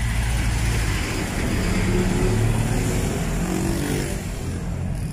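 Street traffic passing close by: a jeepney's diesel engine running as it drives past, over a steady hum of other cars and tyre noise. About two seconds in, an engine's pitch rises as a vehicle speeds up.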